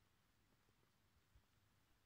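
Near silence: room tone, with a faint low thump about one and a half seconds in.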